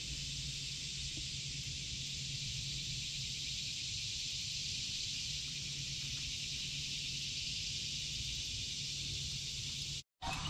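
Steady chorus of insects in swamp vegetation, an even high-pitched hiss that goes on without a break. It drops out for a moment just before the end.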